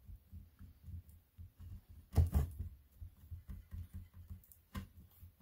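Faint handling sounds of hands pressing and shaping a block of polymer clay on a cutting mat: soft, irregular low knocks, one louder thump about two seconds in and a short sharp tap near the end.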